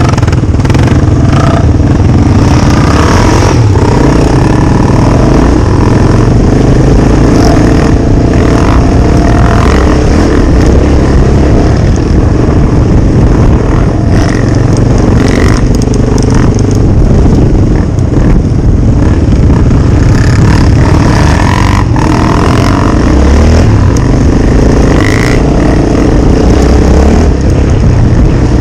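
Loud, steady motor vehicle noise that runs without a break.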